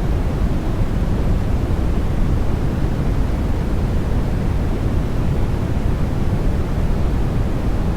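Continuous generated sleep noise (sold as white noise): an even, unbroken rush that is deep and full in the low end and thins out toward the highs, with no changes.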